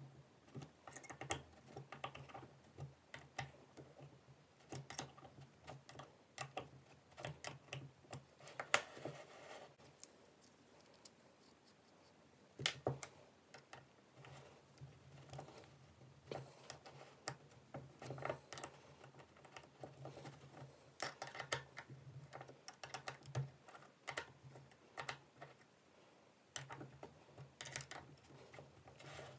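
Irregular small metallic clicks, taps and scrapes from handling a steel watch-bracelet repair jig and turning its socket-head screws with an Allen key. A faint steady low hum lies underneath.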